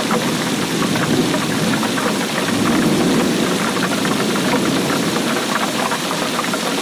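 Rain falling steadily: a constant hiss with a dense patter of drops striking a surface.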